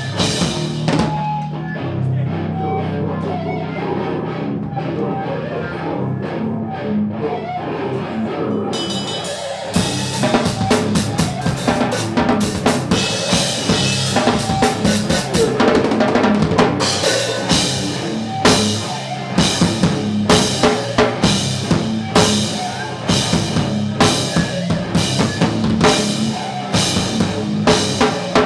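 Live band playing: electric guitar and drum kit. It opens on sustained low guitar notes with sparse drum hits, then about nine seconds in the full kit comes in with cymbals, settling later into heavy accented hits about two a second.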